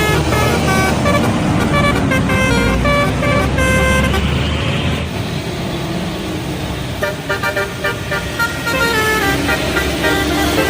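Indonesian 'telolet' bus horn playing a melody of short, stepped multi-tone horn notes over the low rumble of the bus engine; about seven seconds in the notes come in quick, choppy pulses before the melody resumes.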